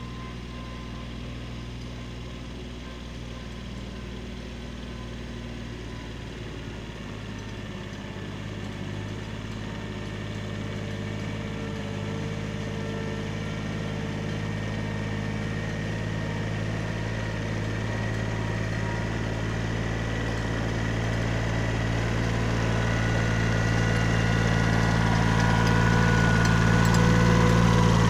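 Kubota B7100 compact tractor's three-cylinder diesel engine running steadily as it pulls a drag box toward the listener, growing steadily louder until it is close by near the end.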